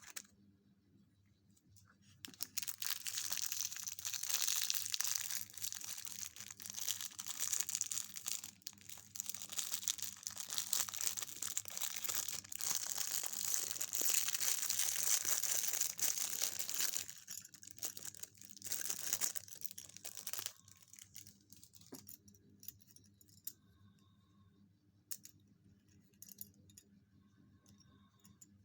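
A surprise-egg wrapper being crinkled and torn open by hand: a long stretch of dense crackling and rustling that stops about twenty seconds in, followed by scattered light clicks.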